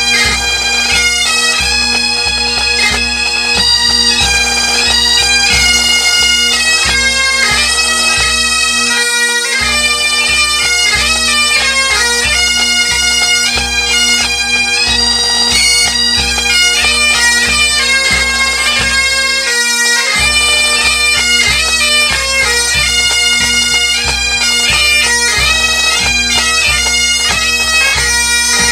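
Scottish pipe band playing: bagpipe chanters carry the melody over the pipes' steady drone, with bass and snare drums beating time. The bass drum drops out briefly twice, about a third and two thirds of the way through.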